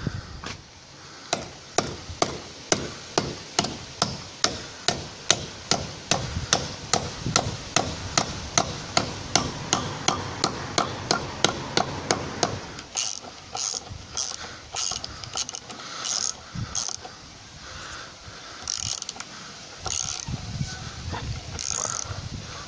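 A hammer striking an anchor bolt to drive it into a drilled hole in a brick wall, in a steady run of sharp blows about two or three a second for roughly half the time. Then irregular clicks and scrapes as work on the fixing goes on.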